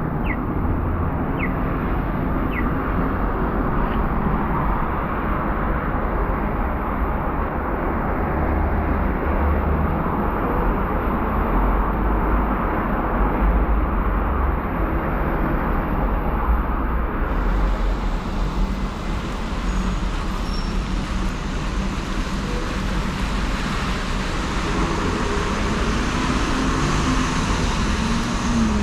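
City street traffic: a steady rumble and hiss of cars and buses passing on the road.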